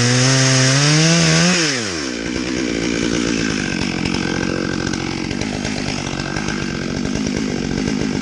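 Chainsaw on a chainsaw mill running at high revs. About a second and a half in, its pitch drops sharply and it carries on at a lower, rougher speed.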